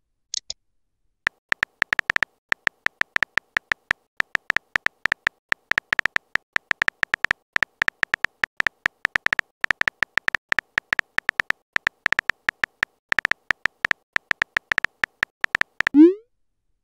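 Phone keyboard tap sounds from a texting app, rapid short clicks as a message is typed letter by letter. A short high blip comes just after the start, and a rising swoop sounds near the end as the message is sent.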